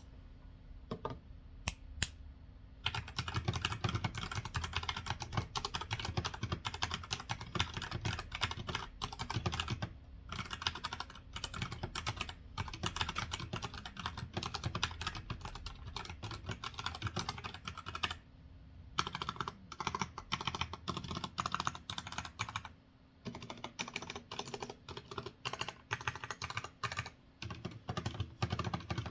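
E-Yooso Z11T mechanical keyboard being typed on fast, a dense run of key clacks. It starts with a few single keystrokes, and the typing breaks off briefly about ten and eighteen seconds in.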